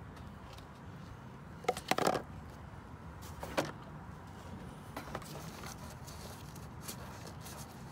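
Hard plastic knocks and clatter as a plastic oil jug is picked up and a plastic funnel is set in the engine's oil filler. There is a quick cluster of knocks about two seconds in, a single knock a little later, then lighter taps, over a steady low hum.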